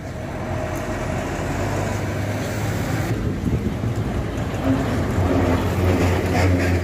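Motor vehicle engines running with street noise, a steady low hum under an even roar; the background changes abruptly about three seconds in.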